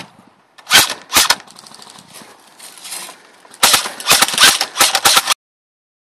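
Airsoft guns firing: two single sharp shots about a second in, then a rapid string of shots from just past the middle that stops abruptly.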